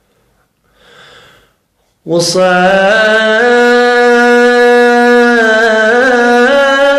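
A man's voice singing one long held note in a chant-like style, sliding slowly between a few nearby pitches. It starts suddenly about two seconds in, after a faint breath.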